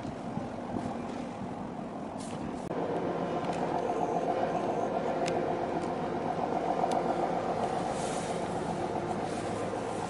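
A steady engine drone with several held tones sets in about three seconds in and runs on, over a hiss of wind noise. A few faint clicks sound within it.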